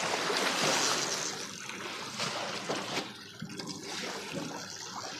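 Water trickling and dribbling steadily, a little louder in the first couple of seconds.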